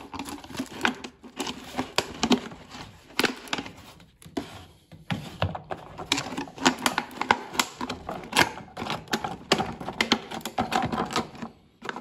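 Rapid, irregular clicking and crackling of a thin plastic bottle handled against the washing machine, with water trickling from the unscrewed drain-pump filter into it.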